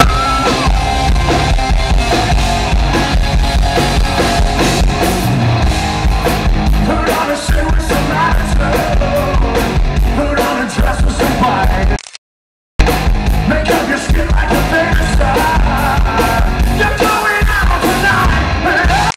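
Live rock band playing loud, with electric guitars, drums and a male lead vocal. The sound drops out completely for under a second about twelve seconds in, then the song carries on.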